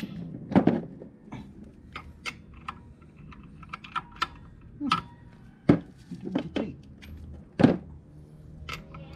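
Metal clicks and clinks of tools and parts being handled at a scooter's belt drive, with three louder knocks: about half a second in, near six seconds and near eight seconds.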